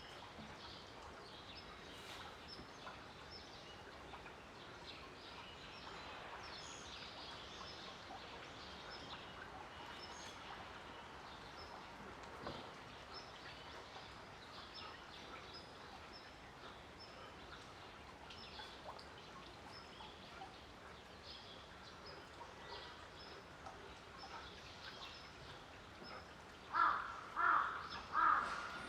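Faint outdoor ambience with small birds chirping high and thin throughout. Near the end come three loud calls in quick succession from an animal.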